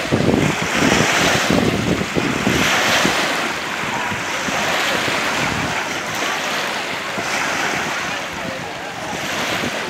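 Small lake waves washing and breaking on a sandy shore, swelling and fading every second or two, with wind rushing across the microphone.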